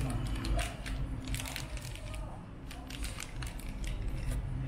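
Handling noise of a new Dell G7 15 laptop being unwrapped and opened: rustling with many short clicks and knocks, over a low steady hum.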